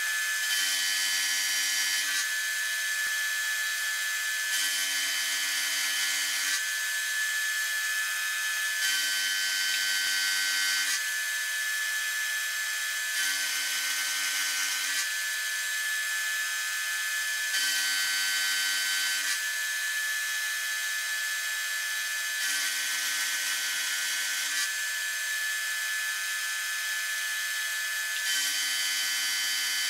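Knee mill's end mill cutting a notch into a metal block, taking pass after pass: a steady high whine, with a lower hum that swells for about two seconds every four seconds or so.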